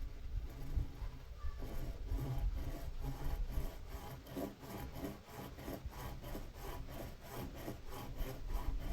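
Hand saw cutting wood in quick, even back-and-forth strokes, starting about a second and a half in.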